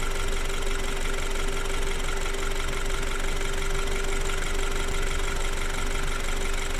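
BMW N20 2.0-litre turbocharged four-cylinder engine idling steadily at operating temperature, with a light mechanical clatter that the owner questions as possibly abnormal.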